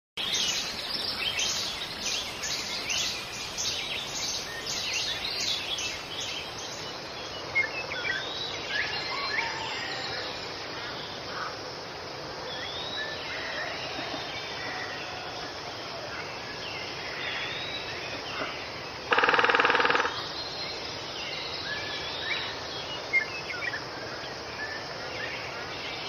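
Forest ambience: a steady rush of flowing water under many birds chirping and calling, busiest in the first several seconds. About two-thirds of the way through, a loud buzzy sound lasts about a second.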